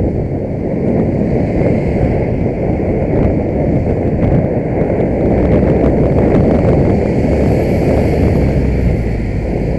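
Wind buffeting the microphone of a bicycle-mounted camera, mixed with the noise of passing traffic. A bus overtakes close alongside near the end, and its engine adds a deeper rumble.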